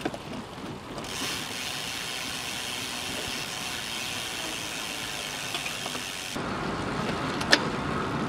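Steady wind and road noise from a bicycle in motion, with one sharp click near the end.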